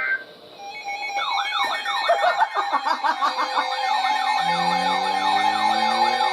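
Several sirens sounding at once: fast up-and-down wails over a steady tone, joined about four seconds in by a slower siren rising in pitch. A short beep at the very start.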